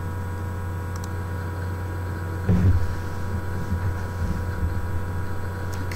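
Steady electrical hum in the recording, a low drone with a buzz of steady overtones above it, and a brief low sound about two and a half seconds in.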